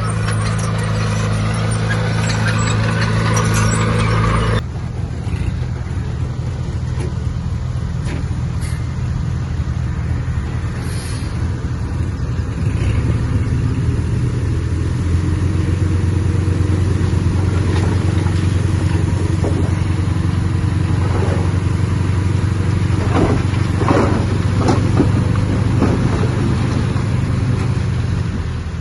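Heavy diesel earthmoving machinery running steadily. There is an abrupt change in the engine sound about four seconds in. Later come several short knocks and clatters of metal and soil.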